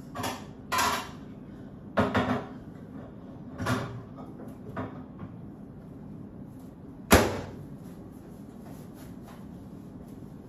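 A few separate knocks and clatters of things being handled in a kitchen, then one sharp bang about seven seconds in, the loudest sound: the over-the-range microwave's door shutting.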